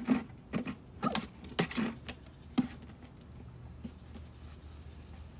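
A few short, sharp knocks and scuffles in the first two and a half seconds, then only a faint steady hum.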